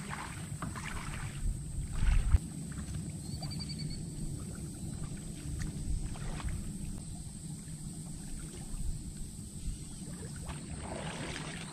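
Outdoor river-shore ambience: a steady low rumble with faint scattered ticks, a constant thin high-pitched whine, and a brief bird trill about three and a half seconds in. A low thump about two seconds in is the loudest moment.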